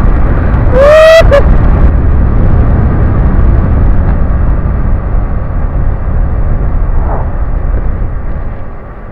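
Heavy wind rush on a helmet-mounted camera at road speed aboard a Kawasaki KLX250S, its single-cylinder engine buried in the noise. A short high-pitched rising sound comes about a second in, and the noise eases off near the end.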